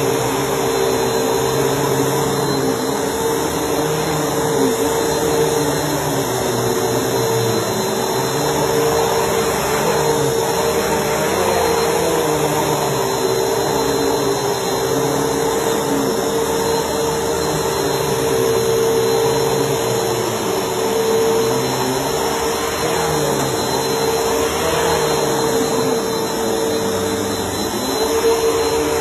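Bissell PowerForce Helix Turbo upright vacuum cleaner running steadily: a constant motor whine over airflow hiss, with a lower note that wavers up and down.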